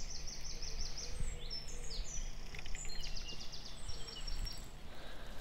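Small songbirds singing: a quick run of about seven high falling chirps in the first second, then several separate high whistled notes, over a low steady hum.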